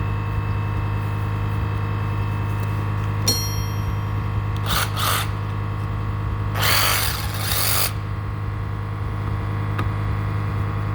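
Makita JR101D cordless reciprocating saw running with a steady motor hum, its blade rasping into wood in two bursts about five and seven seconds in, the second one longer and louder. There is a click about three seconds in. The saw labours through the cut, which the owner puts down to probably hard wood and a probably weak battery.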